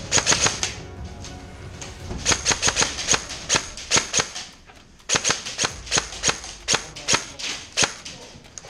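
Airsoft guns firing, sharp shots in quick strings of several a second, with a short pause a little before halfway and a steadier run of shots through the second half.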